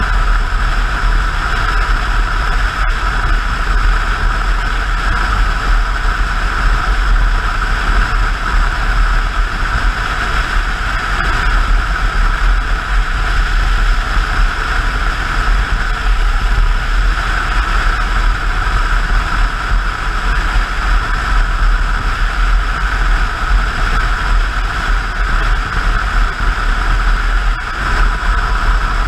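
Motorcycle cruising at steady highway speed: an even engine drone mixed with the rush of wind past the bike-mounted camera, holding level without change.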